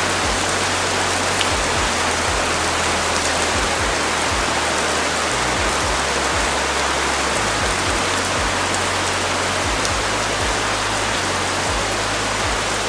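Steady, heavy rain falling, an even hiss.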